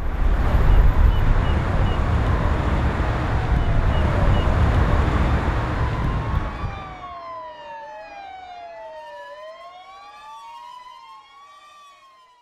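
An emergency-vehicle siren wailing, its pitch rising and falling every second or two. For the first several seconds it sits under a loud, deep rumbling noise. About seven seconds in the rumble drops away, leaving two overlapping wails that fade out near the end.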